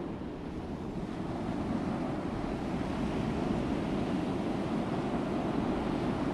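A steady, even rushing noise, heaviest in the low range, with no separate events in it.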